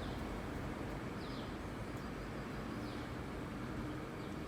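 A small bird chirping faintly, a short falling chirp repeated about every second and a half, over steady low background noise.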